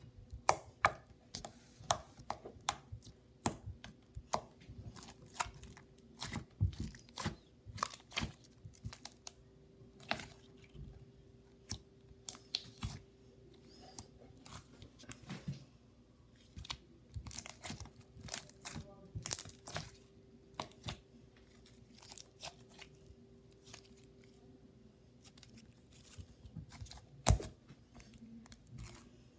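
Pink slime pressed and kneaded by hand on a hard countertop, giving many sharp, irregular clicks and pops, with a quieter spell shortly before the end. A faint steady hum runs underneath.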